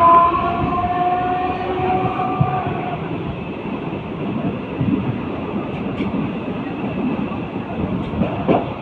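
Mumbai suburban local train running: a train horn sounds with several steady tones for about the first three seconds over the constant rumble and rattle of the wheels on the track. Sharp knocks and clatter come through near the end.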